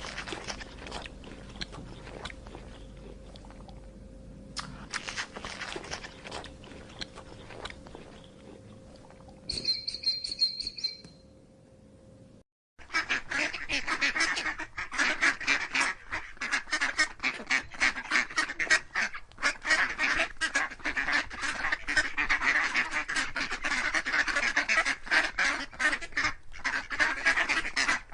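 A flock of waterfowl calling over one another, a dense run of rapid quacking and honking that starts abruptly after a short break about halfway in. Before it, scattered clicks and a brief two-note call.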